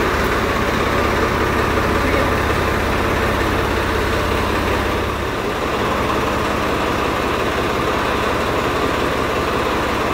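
Swaraj 855 FE tractor's three-cylinder diesel engine idling steadily; its low rumble eases a little about five seconds in.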